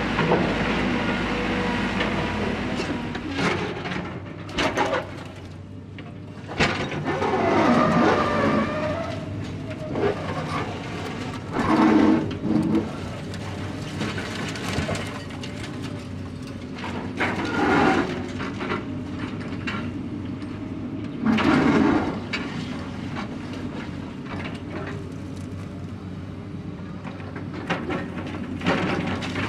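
Construction site ambience: a machine engine running steadily, with irregular metal clanks and rattles on top and several louder clattering bouts.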